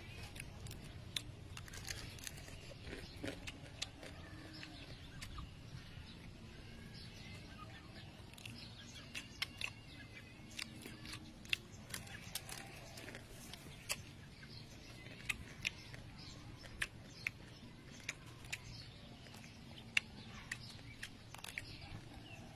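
Small cooked crabs being cracked apart by hand and chewed: faint, sharp, irregular clicks and crunches of shell, a few at a time with short gaps.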